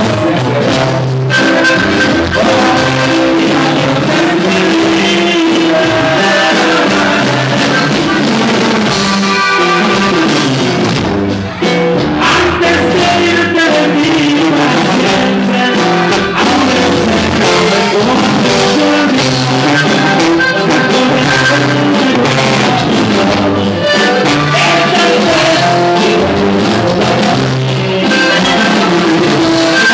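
Live Mexican regional band music: button accordion, guitar and tuba playing a steady song, with a man singing lead over it.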